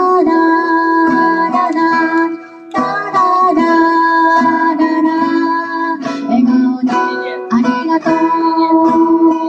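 Music: an instrumental passage played on a plucked string instrument, with held notes and a few pitch slides.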